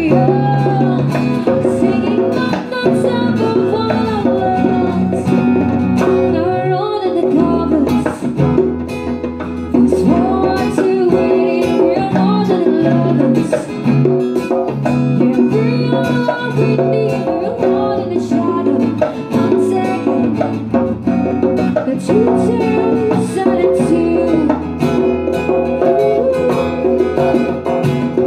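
Live acoustic trio: a woman singing a melody over strummed guitar and djembe hand-drum rhythm, amplified through a PA.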